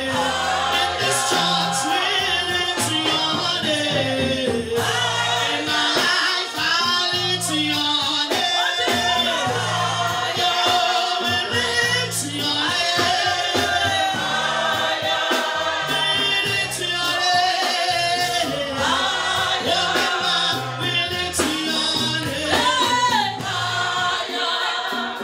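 Live gospel song: a woman sings lead into a microphone with other voices joining in, over electric bass guitar and drums with a steady beat.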